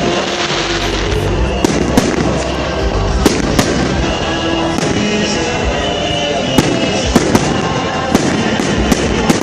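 Fireworks display: a dozen or so sharp bangs of shells bursting at irregular intervals, over steadily playing music.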